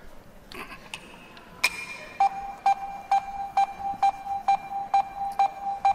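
Game-show countdown timer sound effect: a click, then a steady electronic beeping at one pitch, about two beeps a second.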